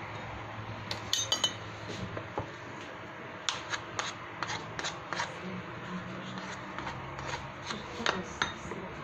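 A spoon clinking and scraping against a glass bowl while scooping through mashed potato, a scattered run of light taps and clicks over a low steady hum.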